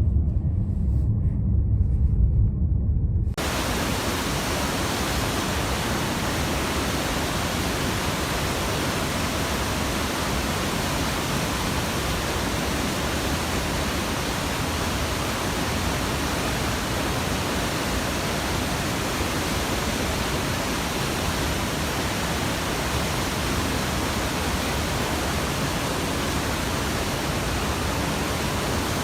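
Low, steady road rumble inside a moving car, then an abrupt cut about three seconds in to the steady, even rush of a waterfall.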